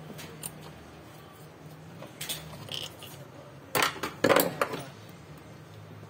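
Metal tools and parts clinking and knocking while a washing machine's drive assembly (motor pulley, belt and large transmission pulley) is worked on by hand. There are a few scattered clicks, with the loudest knocks about four seconds in, over a steady low hum.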